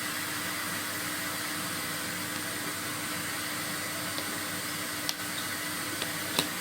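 Chimney sweep's vacuum cleaner running steadily, its nozzle set in the fireplace to catch soot. A few light clicks and knocks come near the end, the sharpest just before it ends.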